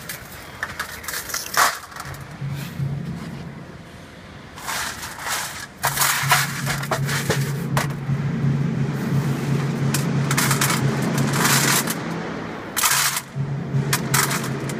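Shelled peanuts rattling in bursts as they pour and are scooped over a stainless steel tray, over the colour sorter's steady low hum. The hum comes in about two seconds in and dips briefly near the end.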